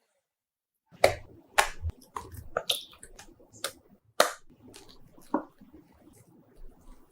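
A string of sharp clicks and knocks, about eight at irregular intervals, starting about a second in, some with a dull thud beneath.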